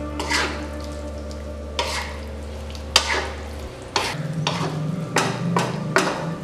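Spatula stirring and scraping chunks of tempe gembus and chilies in a nonstick wok, with repeated scrapes and clicks against the pan over a wet sizzle of simmering broth. A steady low hum underneath changes about four seconds in.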